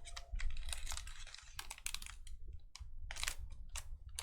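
Trading cards being handled and slid against one another, a string of irregular soft clicks and rustles.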